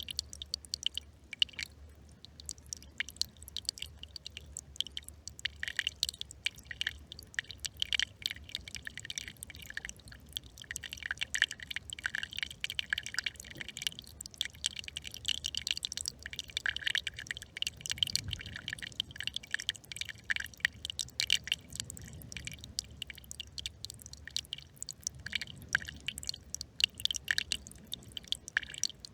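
Small brook trickling and babbling close by, a dense run of irregular little splashes and drips.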